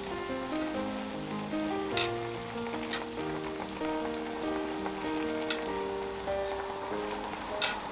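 Ramen broth boiling in a cast-iron pot-lid griddle, a steady bubbling hiss with a few sharp clicks as the noodles are lifted and dropped back with chopsticks. A melody of steady notes plays over it.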